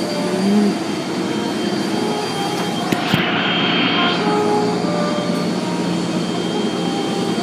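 Car wash equipment running with a steady mechanical roar, and a brief hissing surge about three seconds in.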